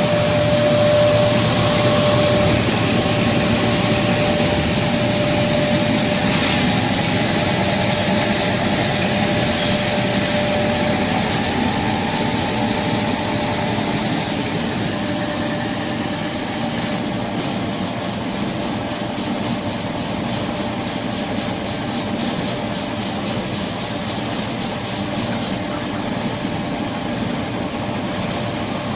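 Quinoa washing and centrifuge machine running: a steady mechanical noise with a faint whine that fades out about ten seconds in.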